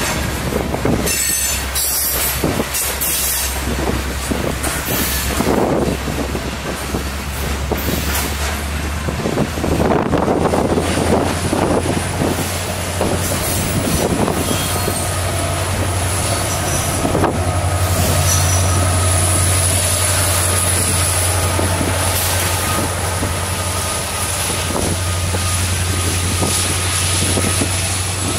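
Freight train of coal hopper cars rolling past, with a steady low rumble and the clicking of wheels over the rails. About a third of the way in a thin, high wheel squeal sets in and holds steady.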